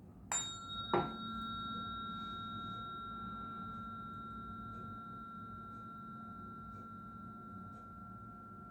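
Tuning fork struck twice in quick succession, then ringing on in a steady high tone that slowly fades.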